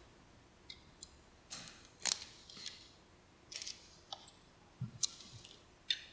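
Small hand tools and metal parts clicking and tapping against the timing-belt area of a Yamaha 4.2 L V6 SHO outboard as the belt guides are worked on. It is a string of light, sharp, irregular clicks, the loudest about two seconds in.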